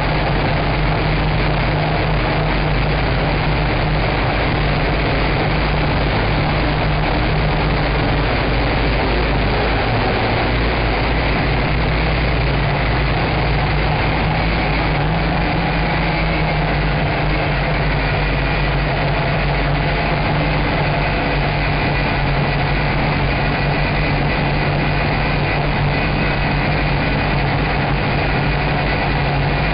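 Nine Eagles MOLA M24 quadcopter's electric motors and propellers running steadily in flight, a constant hum and whine recorded close up through the drone's own onboard camera. The whine shifts slightly in pitch about halfway through.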